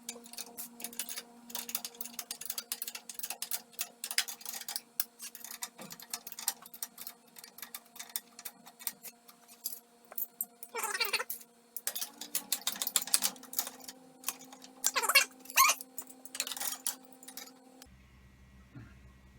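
Ratchet socket wrench clicking in quick runs as the flange bolts of a hot-water circulator pump are snugged up, over a steady hum.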